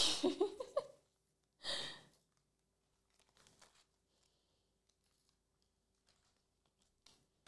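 Yu-Gi-Oh trading cards being handled by hand: one short papery swish about two seconds in, then faint rustling and a few light taps as the cards are squared and stacked. A voice trails off at the very start.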